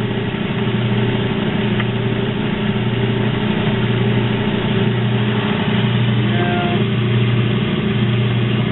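Water-cooled, diamond-edged rock saw running steadily: a constant motor hum under the splash and hiss of its cooling water. The automatic feed is moving the mounted tooth toward the blade.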